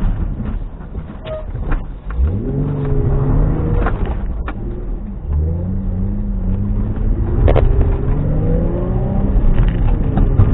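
Car engine heard from inside the cabin, revved hard while the car is drifted on a slippery wet road: the engine note climbs sharply about two seconds in, drops back around four to five seconds, then climbs steadily again, with a few short knocks.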